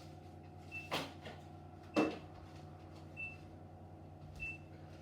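Two knocks about a second apart, the second louder, over a steady low hum, while a short high electronic beep repeats about every 1.2 seconds.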